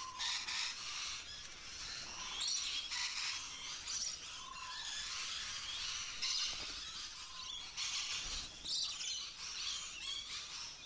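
A small flock of rainbow lorikeets calling together in many overlapping shrill, high calls: a courtship chorus between bonded pairs.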